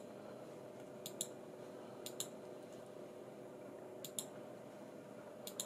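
Computer mouse button clicking about four times at irregular intervals, each click a quick press-and-release double tick, over a faint steady hum.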